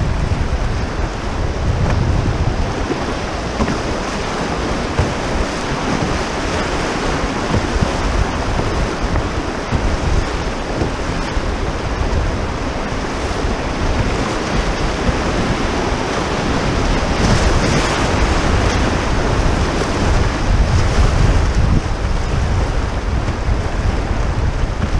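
River rapids rushing steadily around a canoe, with wind rumbling on the microphone.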